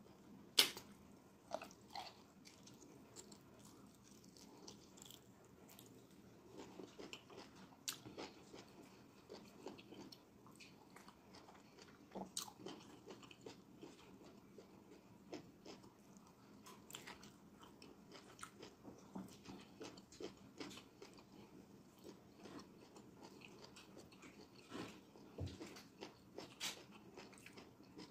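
Close-up chewing of fufu and egusi soup eaten by hand: faint, irregular wet mouth clicks and smacks, the sharpest about half a second in.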